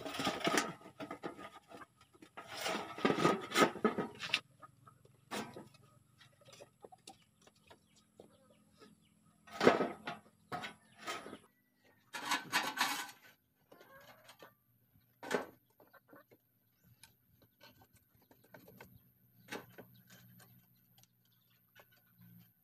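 Chickens clucking, with intermittent loud rustling and cracking as dry sticks and kindling are handled in a wood-fire stove, coming in separate bursts with quiet gaps between.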